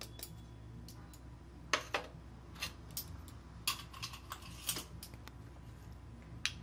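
Light, irregular clicks and taps of a steel spoon and a small steel bowl against a plate as flour is spooned out and a bowl of chili powder is handled, about a dozen scattered ticks.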